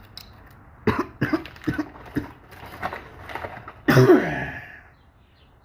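A person's short non-speech vocal sounds: a few brief bursts, then a louder cough-like burst, falling in pitch, about four seconds in.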